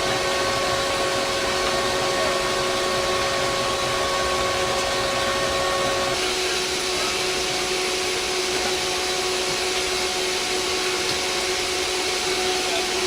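C-130 turboprop engines running, a loud steady rushing noise with a few steady whining tones over it. About six seconds in, the tones shift to a different pitch.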